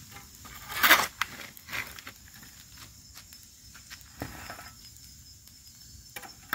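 Scraping and knocking as embers are raked out of a bonfire: one loud, rough scrape about a second in, then scattered faint knocks and clicks. A faint steady chirp of insects runs underneath.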